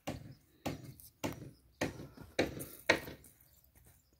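Damp garden soil being firmly patted down around newly planted onion seedlings to close their planting holes: about six dull thuds, roughly two every second, stopping about three seconds in.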